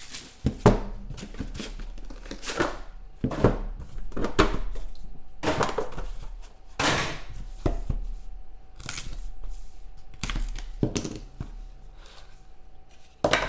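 Cardboard trading-card box being opened and handled by hand: irregular thunks and scrapes of cardboard as the lid comes off and the inner case of cards is pulled out, with a sharp knock near the end.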